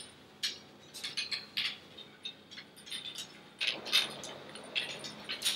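Aluminium bimini frame tubing and its stainless quick-connect fittings being handled and joined: a series of irregular light metallic clicks and clinks, thickest about four seconds in.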